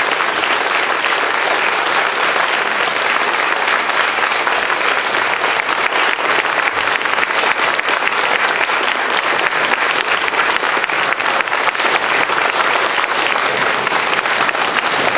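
A conference audience applauding: steady, sustained clapping from many hands.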